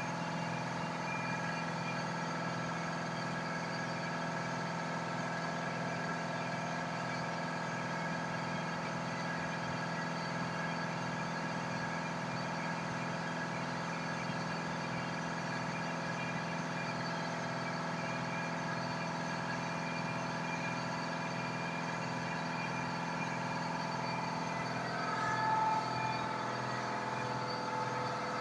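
Desktop diode laser engraver running as it burns a pattern into wood: a steady mechanical hum with several steady whining tones, and a short louder whine near the end.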